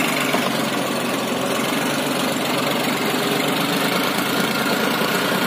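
John Deere 5045D tractor's three-cylinder diesel engine running steadily while pulling a fully loaded trolley of mud.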